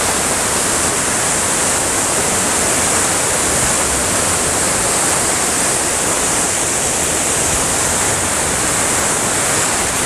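A waterfall cascading down rock into its plunge pool, heard close up: a loud, steady rush of water with no break, loud enough to drown out talk.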